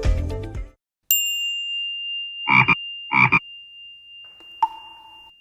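Music ends abruptly, then a single high bell-like ding rings out and fades slowly. Two short croaking blips follow about two-thirds of a second apart, and near the end comes a click with a brief, lower ring.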